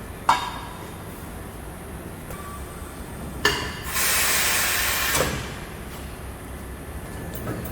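A sharp metal clank, a second clank a few seconds later, then a burst of hissing compressed air lasting just over a second, in a tire shop's work bay.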